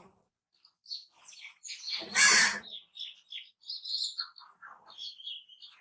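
Birds calling: a string of short, high chirps, and about two seconds in one loud, harsh call lasting about half a second.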